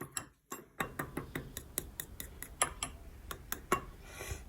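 A utensil stirring egg-and-flour batter in a dish, clicking rapidly against the side at about five strikes a second, with a short scrape near the end.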